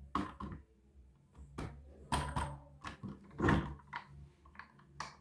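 Hands handling toys and their packaging: about ten light, irregular knocks, taps and clunks, with one longer scrape about three and a half seconds in, over a faint low hum.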